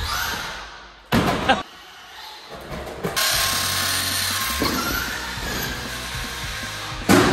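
Small electric RC car driving on wooden skate-park ramps: a steady motor whir and tyre noise, with a sharp loud knock about a second in and another near the end as the car hits the ramps.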